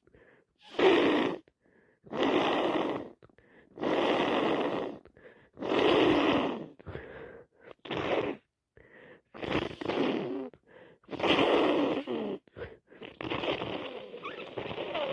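A person congested with a heavy cold blowing her nose and sniffing, in a run of about eight short breathy bursts, one every second or two.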